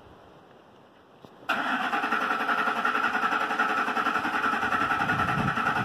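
A 2006 Lincoln Mark LT's starter cranking its V8, which does not catch. The cranking starts suddenly about a second and a half in and goes on steadily. The owner puts the no-start down to a failed fuel pump.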